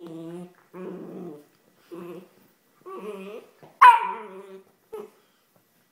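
Whippet puppy making about six short growling whines in a row. The loudest, about four seconds in, starts higher and falls in pitch like a yip.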